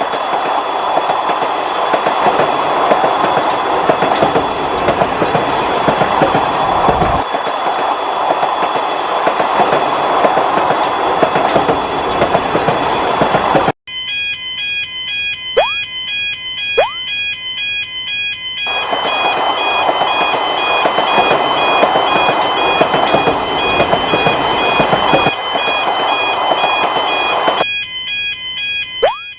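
Railroad-crossing warning bell sounding over the noise of a passing train. The sound cuts off abruptly about halfway through. Then the crossing bell rings again in an alternating two-tone pattern, with two short rising swoops and a second stretch of train noise going by.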